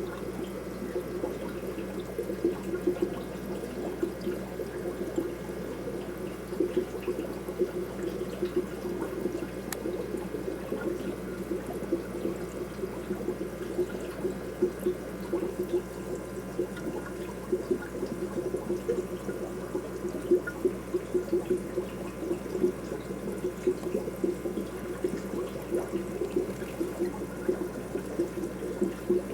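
Aquarium water bubbling and trickling steadily, with many small splashy pops, over a faint steady hum.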